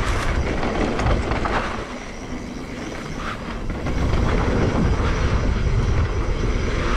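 Wind rushing over the camera microphone and tyres rolling and crunching on a dry dirt trail as an electric mountain bike rides downhill, with the bike rattling over bumps. The rush eases for a moment about two seconds in, then picks up again.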